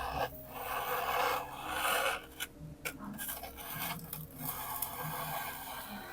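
Hot soldering iron tip dragging and melting its way through thermocol (polystyrene foam), a noisy rubbing in long strokes broken by brief pauses about two and a half and four seconds in.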